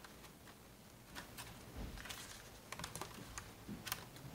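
Faint, irregular clicks and light handling sounds as fingers pry the bottom panel off a Razer Blade Stealth laptop, with a few sharper clicks about a second in and again near the end.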